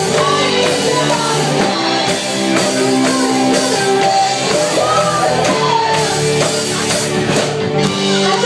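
A live rock band playing loud, with a singer, guitar and drum kit.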